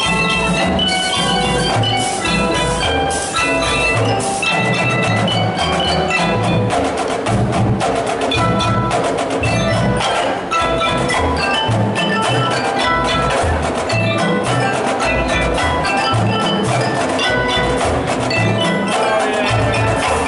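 Marching band percussion section playing a feature: mallet keyboard notes over a steady pattern of snare drum strokes and low bass drum hits.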